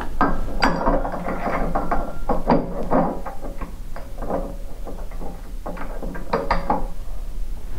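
Metal parts of a snowmobile chassis clanking and rattling in repeated short bursts as they are handled, some clanks ringing briefly.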